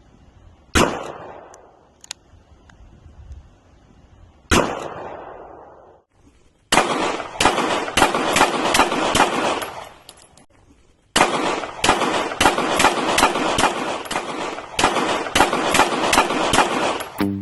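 Two single gunshots, each followed by a long echo, then two long strings of rapid gunfire, the second beginning about eleven seconds in.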